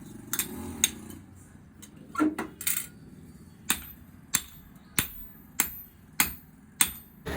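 A blacksmith's hammer striking an axe head on an anvil, each blow ringing sharply. The blows come irregularly at first, then settle into a steady rhythm of about six strikes, roughly one every half second, as the axe edge is drawn out and sharpened.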